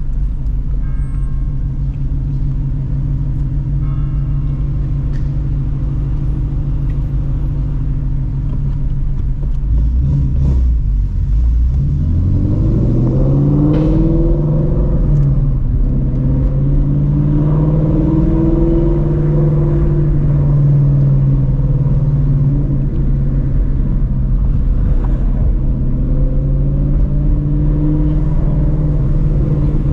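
Straight-piped Shelby GT350's 5.2-litre flat-plane-crank V8 with long-tube headers, heard through its loud exhaust. It runs steadily at low revs at first. About ten seconds in, the revs climb as the car accelerates, then settle into a steady cruise.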